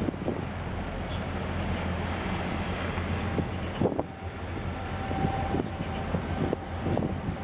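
Wind rushing over the microphone, over a steady low hum from the ultra-large container ship passing close by. A faint, thin steady tone comes in about halfway.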